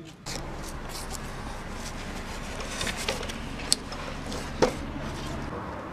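Weathered wooden plank door being pulled open by hand, with scuffs and clicks and two sharp knocks in the second half, over a steady hiss of outdoor background noise.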